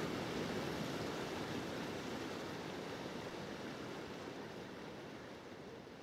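Steady rushing of river water, fading out gradually.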